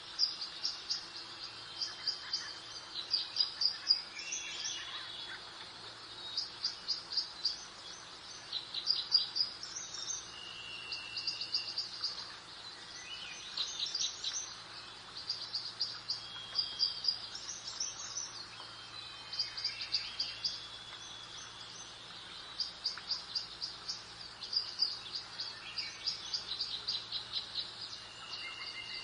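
Songbirds singing: repeated short, rapid trills of high notes, each about a second long, coming every second or two, over a faint steady background of outdoor ambience.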